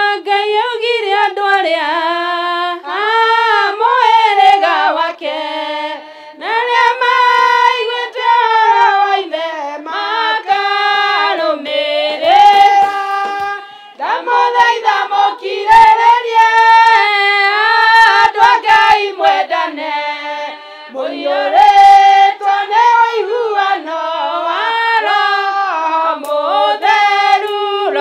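A women's choir singing a Kikuyu hymn together, with no instruments heard, in long phrases broken by short pauses.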